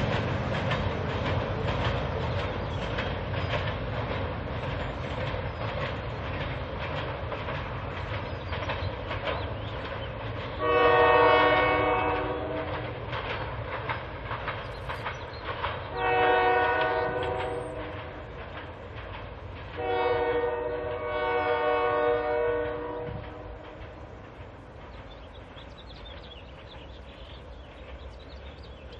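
Freight train rolling past on jointed track, wheels clicking rhythmically, with the locomotive horn sounding three blasts about halfway through, the last the longest. The rail noise then fades as the train moves away.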